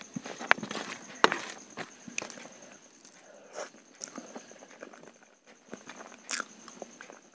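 Eating by hand: fingers mixing rice on a steel plate, then chewing, with several sharp clicks and smacks in the first couple of seconds and fainter ones after.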